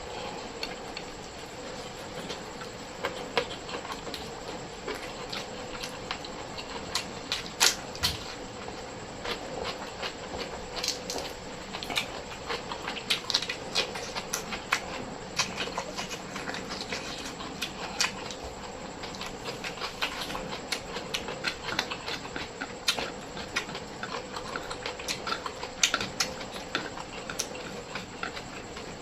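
Close-miked eating sounds: irregular crunchy chewing and wet mouth clicks as food is eaten, over a faint steady hum.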